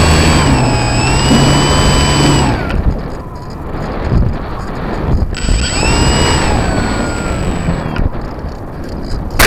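RC airplane's motor and propeller whining as it flies, heard from a camera on board, with the pitch rising and falling. The motor is throttled off about two and a half seconds in, leaving wind rush, comes back on about three seconds later, and cuts again near the end. A sharp knock comes at the very end as the plane is stopped hard.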